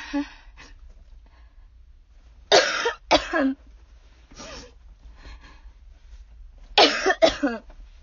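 A woman with a cold coughing: two bouts of two or three harsh coughs each, about two and a half seconds in and again near seven seconds.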